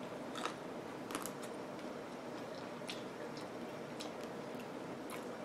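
Chewing a chocolate-covered strawberry with the mouth close to the microphone: scattered soft wet clicks and smacks, quiet and irregular.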